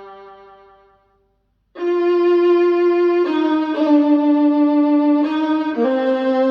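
Slow bowed-string music, violin-like, played back through a KEF iQ1 bookshelf speaker. A held note fades out, there is a short silence, and then a new passage begins about two seconds in with long sustained notes that change pitch every second or so.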